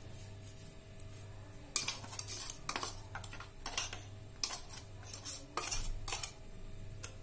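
Metal spoon scraping and tapping against the inside of a stainless steel mixer-grinder jar, emptying ground powder into a bowl. The scrapes and taps come irregularly, starting about two seconds in.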